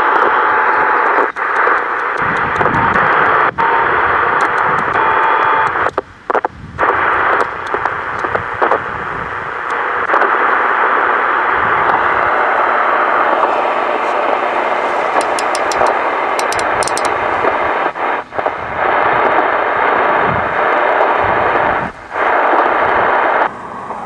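Johnson Messenger 130A CB radio receiving on an open channel: loud steady static hiss from its speaker with scattered crackles. The hiss cuts out briefly a few times.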